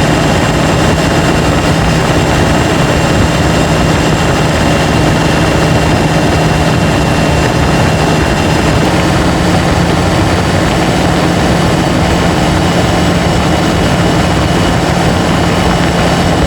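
Nissan Patrol's four-cylinder turbo-diesel engine pulling under hard acceleration up a steep grade, a loud, steady drone whose pitch steps slightly higher about halfway through.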